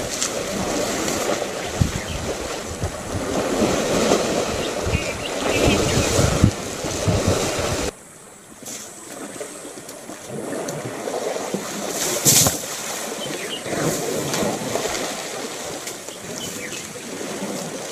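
Wind rumbling on the microphone over splashing water as African elephants wade and spray themselves in a waterhole. About eight seconds in the sound drops suddenly to a quieter mix of splashing, with one louder splash a few seconds later.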